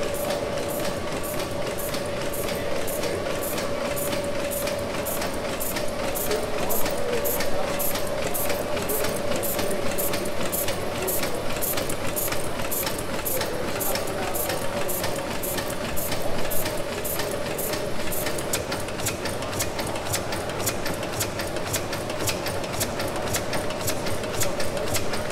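1904 Sulzer tandem-compound steam engine running steadily, its cylinder valve gear ticking in an even rhythm of about two clicks a second over a steady hum.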